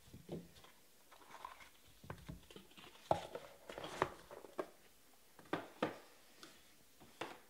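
Trading cards and a small black card box being handled: the lid lifting, cards sliding out and being set down on the table, giving a string of light taps and clicks with soft rustling between them, sharpest about three and four seconds in.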